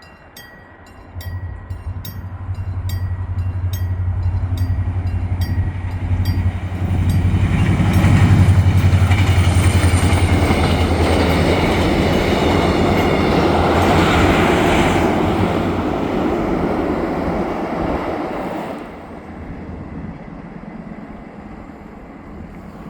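A level-crossing warning bell strikes about twice a second as a diesel-hauled Mugunghwa passenger train approaches with a low engine hum. The train then passes with a loud rumble of wheels and cars that peaks about halfway through and drops away sharply a few seconds before the end.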